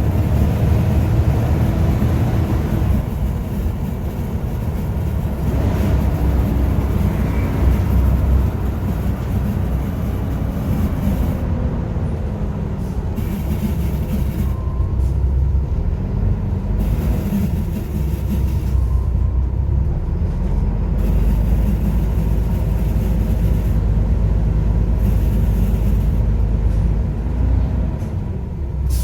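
Volvo B7TL double-decker bus's diesel engine running under load over a steady low rumble. Its pitch rises and falls several times as the bus accelerates and changes gear.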